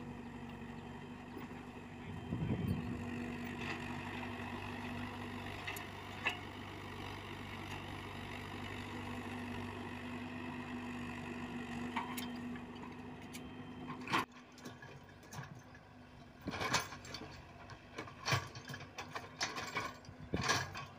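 Komatsu PC78UU mini excavator's diesel engine running at a steady pitch while it digs. About two-thirds through, the engine sound drops away and a series of sharp knocks and rattles follows.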